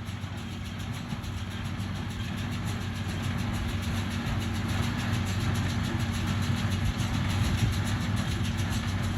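An engine running steadily with a low hum, slowly getting louder.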